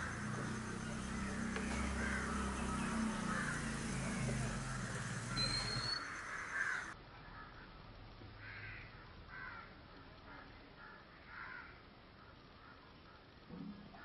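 A steady low hum with a hiss over it and a short rising whistle, which cuts off about seven seconds in; then a crow caws repeatedly over quieter ambience.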